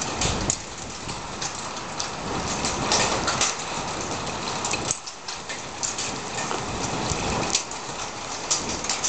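Rain falling: a steady hiss with many irregular sharp taps of drops.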